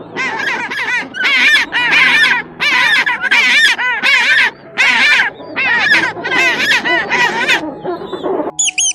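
A flock of waterfowl calling: many loud, overlapping honking calls in quick succession. A short high-pitched tone sounds near the end.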